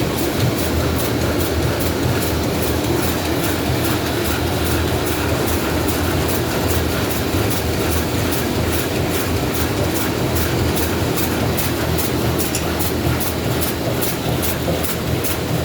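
Side sealing bag-making machine running 51 micron BOPP film through its online folder: a steady mechanical clatter with a fast, regular clicking as it cycles.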